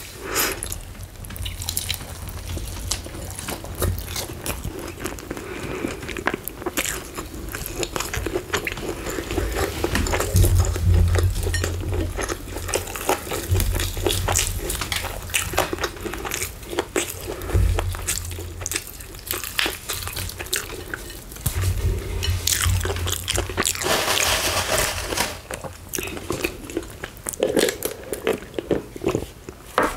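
Close-miked eating of crispy fried chicken: the breading crunching and tearing under bites and fingers, with chewing and many sharp clicks, and bouts of low thumping.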